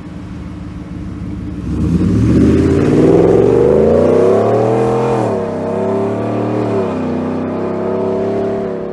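Ford Shelby F-150 pickup's supercharged 5.0 L V8 idles briefly, then accelerates hard away: the engine note climbs in pitch for about three seconds, drops sharply at an upshift about five seconds in, and pulls again, a little quieter as the truck draws away.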